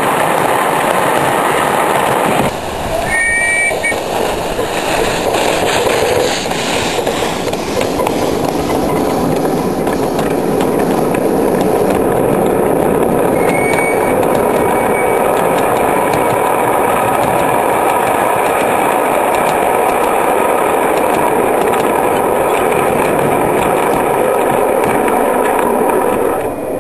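Miniature railway mixed train of wagons and coaches rolling past, its wheels clicking and clacking over large rail joints in a steady run of beats, with a couple of short high squeals. The sound falls away near the end as the last car passes.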